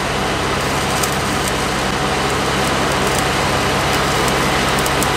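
Stick welding arc crackling and sizzling steadily as a 7018 electrode is run uphill on steel.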